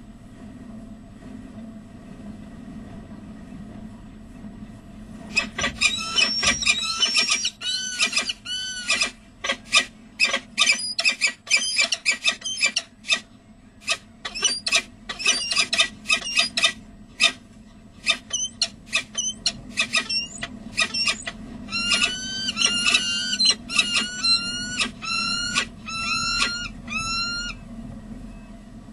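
Peregrine falcons calling: rapid runs of high-pitched chipping and wailing notes starting about five seconds in, broken by short lulls, then a steady series of clipped, hooked calls about two a second that stops shortly before the end. A low electrical hum from the webcam runs underneath.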